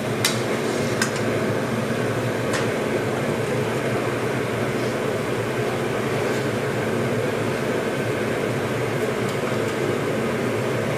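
Steady hum and rush of a kitchen exhaust fan over semolina frying in oil in a steel karahi on a gas flame. A slotted steel spoon clinks against the pan three times in the first few seconds.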